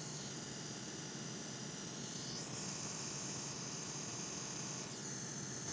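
Steady airflow hiss from a hot air rework station heating a new chip as it is soldered onto the logic board, the hiss shifting in tone a few times.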